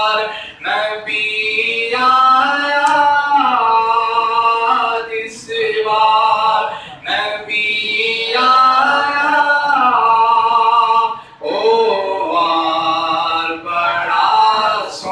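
A man singing a naat, a devotional poem in praise of the Prophet, unaccompanied. He sings in long drawn-out phrases that bend up and down in pitch, with short breaks between them.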